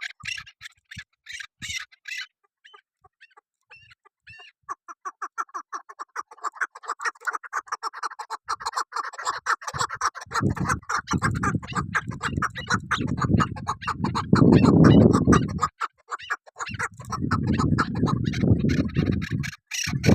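Female chukar partridge calling: a rapid run of clucking notes that starts sparse and, about four to five seconds in, speeds up into a continuous chattering series. In the second half, two long stretches of loud low rumbling noise lie under the calls.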